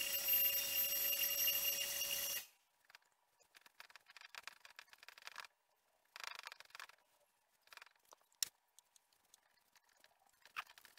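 A loud steady tone over a hiss that cuts off abruptly about two and a half seconds in. After it, faint scratchy strokes of a rag and a brush working stain into wood, with one sharp click.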